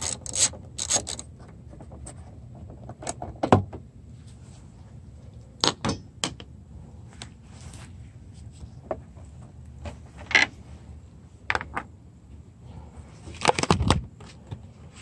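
A socket ratchet clicks in a quick run for about the first second as a mirror bolt is worked, then scattered metallic clinks and knocks follow, with a heavier cluster of knocks near the end.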